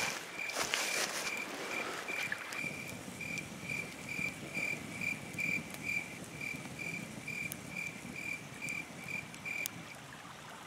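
Insect chirping steadily, cricket-like, about three short high chirps a second, stopping near the end. Underneath, a wood campfire crackles with scattered pops, busiest in the first couple of seconds.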